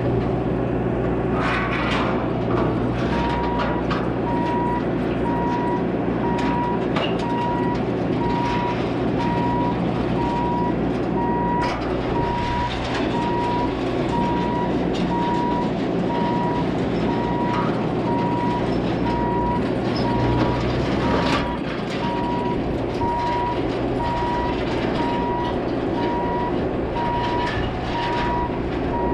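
Bobcat T650 compact track loader's diesel engine running steadily, heard from the cab. From about three seconds in, its backup alarm beeps steadily and evenly, the sign that the machine is travelling in reverse. A few short knocks cut in now and then.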